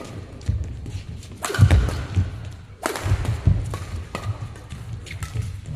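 Badminton doubles rally: rackets striking the shuttlecock with sharp cracks about every second or so, among the thuds of players' footsteps on the court, in a large echoing hall.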